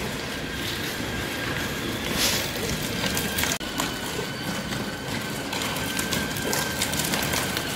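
Children's battery-powered ride-on quad bike driving, its electric motor giving a steady high whine over the rumble of its plastic wheels on paving.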